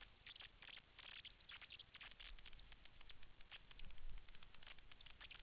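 Faint, irregular rustling and crackling close to the microphone, with no engine running.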